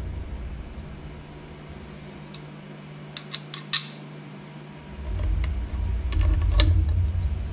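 Light metal clicks and clinks of a steel torch-holder bracket and its bolts being handled and offered up to a metal plate: a quick run of taps in the middle, the sharpest at the end of it, and one more near the end. From about five seconds in, a low rumble of handling noise runs under them.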